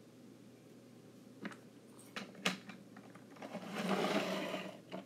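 Small plastic toy pieces handled on a tabletop: a few light clicks and taps, then about a second of scraping as a piece is slid or rubbed, near the end.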